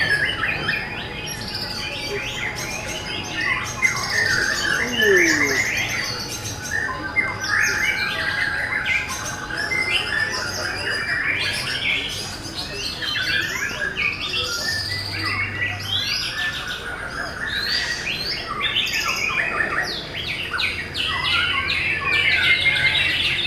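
Several caged white-rumped shamas (murai batu) singing at once: a dense, unbroken tangle of overlapping whistles, chirps and rapid rattling phrases.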